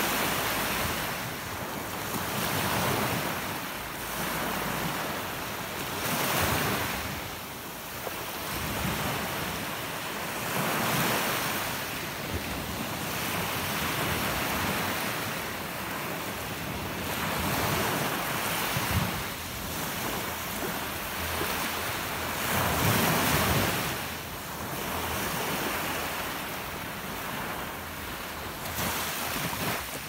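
Small sea waves breaking and washing up a shallow sandy beach, the surf rising and falling every few seconds, with wind buffeting the microphone.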